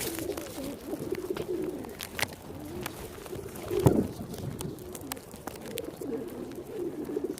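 Pigeons cooing over and over in low, wavering calls, with scattered faint clicks and one brief louder burst near the middle.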